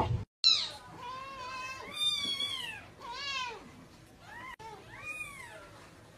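Kitten mewing repeatedly: a string of high, arching mews, about seven in all, one of them drawn out.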